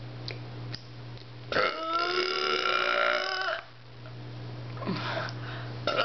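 A person's deliberate, long burp lasting about two seconds, starting about a second and a half in, with a clear pitch to it.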